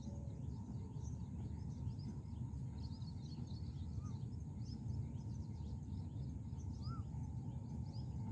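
Birds chirping again and again, with a few short rising-and-falling whistled calls, over a steady low outdoor rumble.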